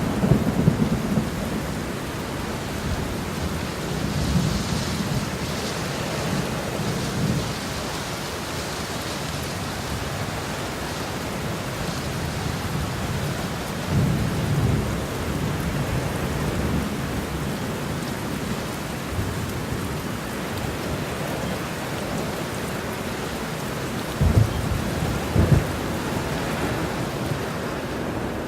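Steady rain with low rumbles of thunder rolling in several times.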